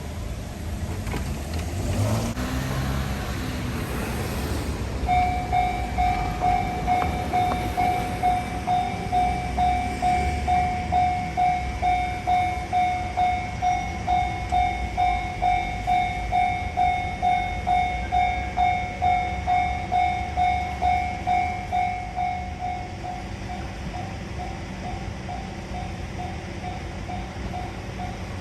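JR-type electronic level-crossing alarm starting about five seconds in, a two-pitched ringing beat repeating about twice a second. Near the end it drops to a lower volume, the crossing's control that turns the alarm down as the train draws close.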